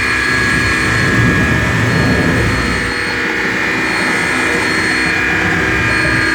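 Dense electronic drone-noise improvisation from DIY oscillators and circuit-bent electronics: several sustained high oscillator tones layered over a low rumbling noise, with a higher tone switching on and off every second or so.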